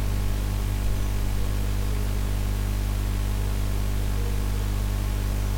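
Steady electrical mains hum with a layer of hiss in the recording, a low drone of evenly stacked tones that does not change.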